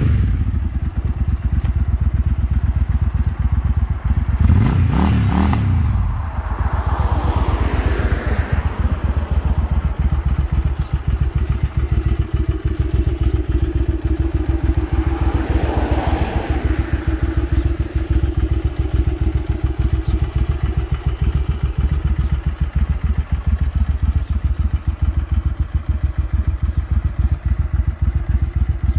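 2001 Suzuki VZ800 Marauder's V-twin engine idling steadily in neutral, with one short rev about five seconds in.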